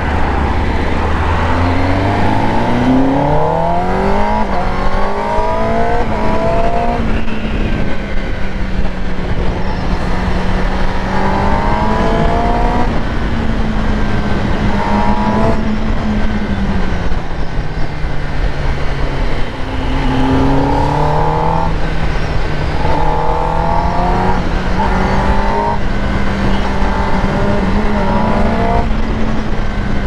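Kawasaki Ninja ZX-10R's inline-four engine running under way, its revs climbing in repeated rising sweeps as the bike accelerates through the gears, with spells of steadier running between them.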